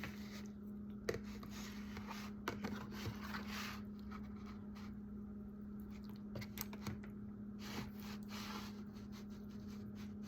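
Faint scrapes and small clicks of pieces of microwaved salmon being moved around in their dish, over a steady low hum.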